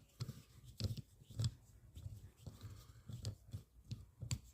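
A screwdriver and small metal parts clicking and scraping at irregular moments as a screw is fiddled into the bracket on a motorcycle carburettor. The screw is not going in straight.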